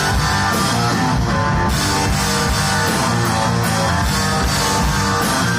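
Live rock band playing a song at full volume, electric guitars over drums and bass.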